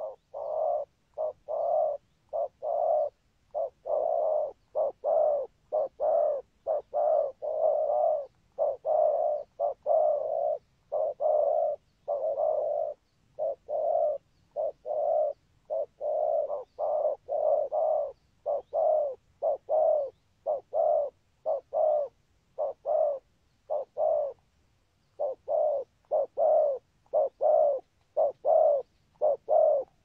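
Spotted dove cooing: a long run of short, repeated coo notes, about one and a half a second, in groups separated by brief pauses.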